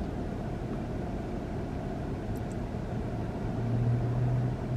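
Steady low rumble of a car heard from inside the cabin, with a low engine hum that swells a little about three and a half seconds in.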